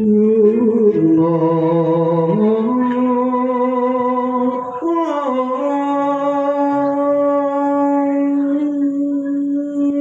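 Live dangdut-campursari music through a PA system: a voice holds long notes that step slowly in pitch over the band, wavering near the start and then holding one long steady note through the second half.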